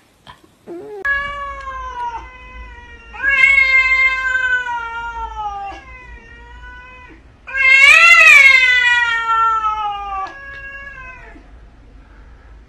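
A grey cat yowling in a series of about five long, drawn-out calls, each sliding down in pitch; the loudest, about eight seconds in, rises and then falls. The calls are a cat's threat yowl, made in a stand-off with another cat.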